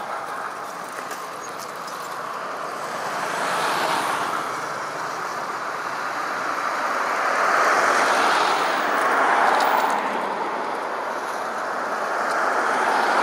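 Road traffic passing, a steady rush of vehicle noise that swells and fades three times as vehicles go by.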